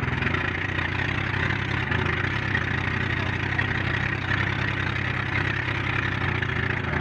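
Outrigger bangka's engine running steadily as the boat travels, with wind and water rushing past over choppy sea.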